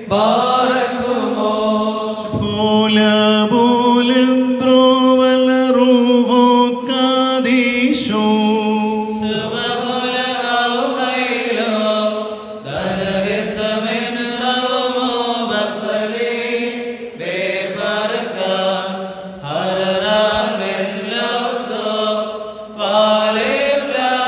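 Syriac liturgical chant of the Friday evening prayer, sung in long melodic phrases with held, gliding notes and brief pauses between phrases.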